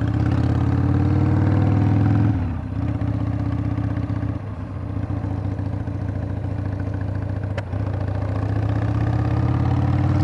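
A 1997 Harley-Davidson Sportster 1200's air-cooled Evolution V-twin running under way. Its pitch climbs under throttle for about two seconds, drops off sharply, holds lower through the middle, then climbs again near the end.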